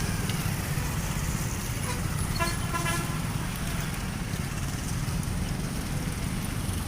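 Steady low rumble of road traffic, with a vehicle horn sounding in quick pulses for about half a second, some two and a half seconds in.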